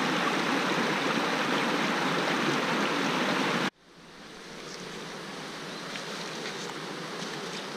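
Shallow river rushing over rocks, a steady, even rush that cuts off abruptly a little under four seconds in. A quieter, softer water sound then fades in and holds.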